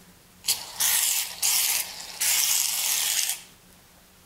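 Aerosol can of shaving cream spraying in about four hissing bursts, the last and longest lasting about a second.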